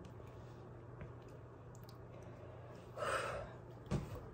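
A short, breathy exhale about three seconds in, a reaction to the heat of a spicy immune shot, over quiet room tone. A light knock follows about a second later.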